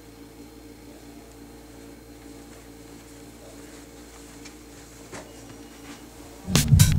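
Steady low hum of several tones in a small room, with a few faint taps a little after halfway. Loud music with a beat starts abruptly near the end.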